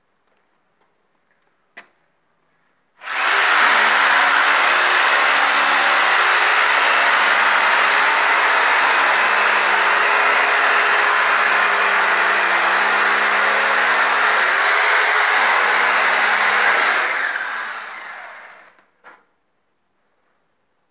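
An electric motor starts abruptly a few seconds in, runs steadily at one speed for about fourteen seconds, then winds down and stops.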